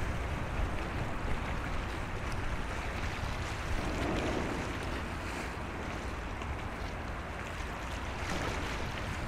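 Wind buffeting the microphone, a low rumble, over a steady wash of sea water.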